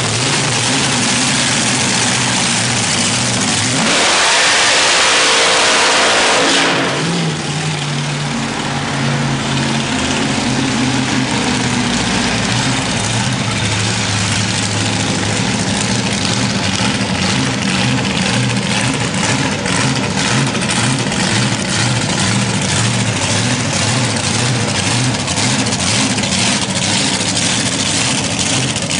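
Dragster engine held at high revs, louder still from about four seconds in, through a burnout. About seven seconds in it drops suddenly to a lower, steady, rough-running note.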